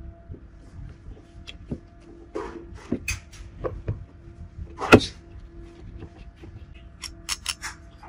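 Clicks and knocks of drill parts being handled and set into a plastic housing: the metal motor assembly and gear being seated in the red housing half, with one sharper knock about five seconds in and a quick run of light clicks near the end.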